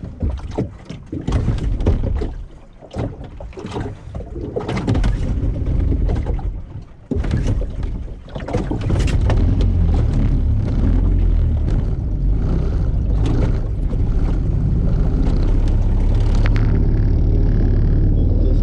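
Irregular knocks and wind noise, then about eight seconds in a small boat's outboard motor comes in and runs steadily with a low drone, after its pulled-off fuel line has been reconnected and reprimed.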